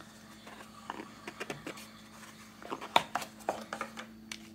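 Paper wrapping rustling and small cardboard boxes being handled as a boxed ceramic paint pan is unwrapped by hand, with scattered light taps and one sharper tap about three seconds in.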